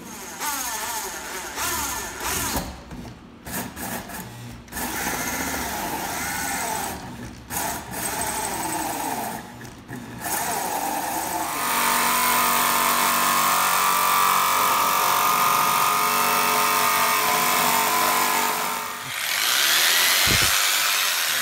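Corded drill driving a 6-inch hole saw into a school bus roof. It cuts in short stop-and-go bursts at first, then runs steadily and louder for the second half, with a brief pause near the end before it starts again.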